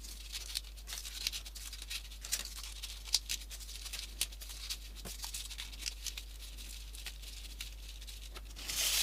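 Folded paper 3D origami pieces being handled and pushed onto the model, making light, irregular paper clicks and rustles.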